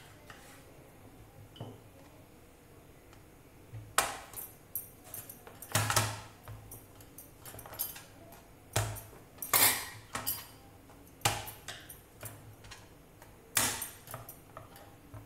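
Wooden rolling pin rolling and knocking on a plastic cutting board as slices of bread are rolled flat: a series of irregular sharp knocks and clatters, about eight.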